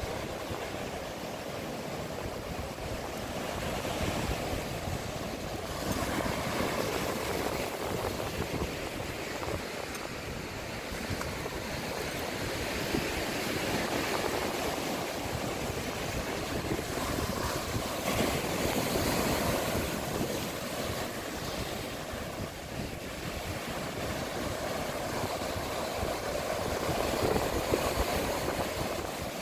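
Ocean surf breaking and washing on the shore, the noise swelling and easing with each wave.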